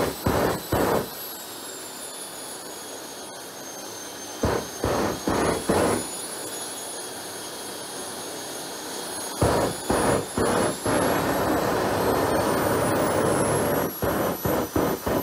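JetCat model jet turbine in an RC dragster running with a high whine that dips then climbs again. Four runs of rapid pulsing, about three pulses a second, break in over a steadier rush, while flame spits from the exhaust.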